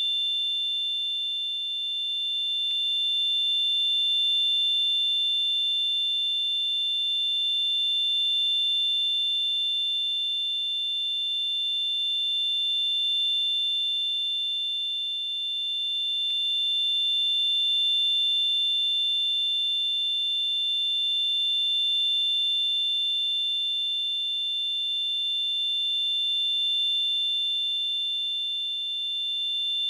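Simulated tinnitus ringing: two steady, high-pitched tones close together in pitch, over a faint hiss. It swells and eases gently every four to five seconds.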